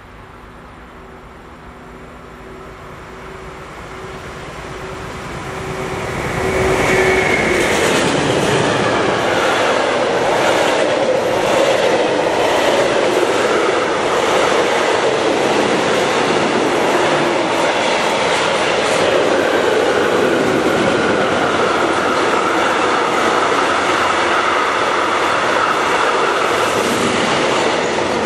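Freight train approaching and passing close by. It grows louder over the first several seconds, then a long rake of tank wagons and covered wagons rumbles past steadily, wheels clattering over the rail joints.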